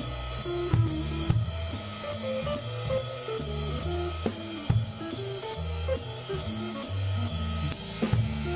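Jazz drum kit playing a swung ride-cymbal pattern, with snare and bass drum comping hits that mark the ends of phrases; a few of these hits stand out sharply. A recorded accompaniment with a stepping bass line plays underneath.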